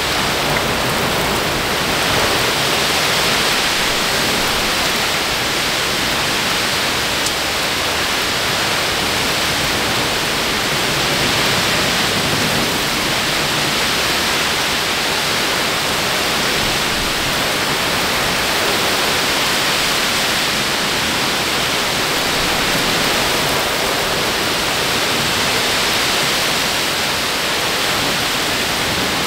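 Very heavy wind-driven rain from a severe thunderstorm, pouring down in a dense, even hiss with no let-up.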